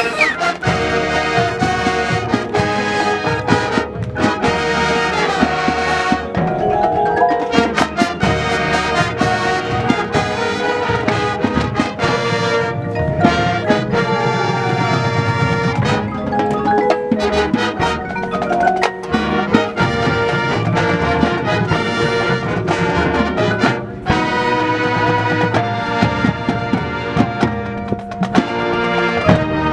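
High school marching band playing a brass-led chart, with trumpets and trombones over front-ensemble marimba and xylophone and drum percussion.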